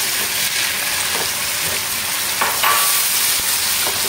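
Chopped tomatoes, onions and green chillies sizzling in hot oil in a frying pan. A silicone spatula stirs and scrapes them in a few strokes, the most distinct about two and a half seconds in.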